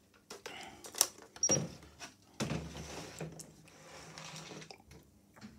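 Handling noises on a workbench: a sharp click about a second in, a very short high beep just after, then a couple of seconds of soft rustling and scraping.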